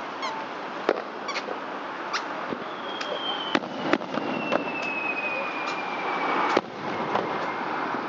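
Fireworks bursting in a scattered series of sharp cracks and bangs, the loudest about a second in, near four seconds and just after six and a half seconds. A long thin whistle slides slowly down in pitch from about three seconds in until the last big bang.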